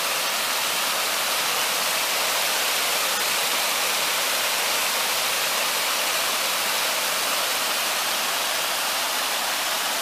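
Small waterfall pouring over a rock ledge onto boulders: a steady, even rush of splashing water.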